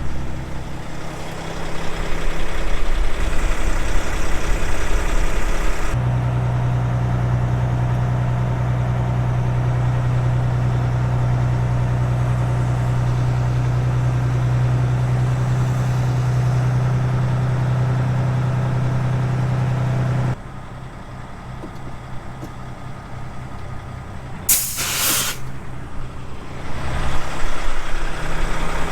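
Grain truck's diesel engine running with a steady low drone that cuts off suddenly, then a quieter engine idle. About 25 s in, a short, loud hiss of air brakes.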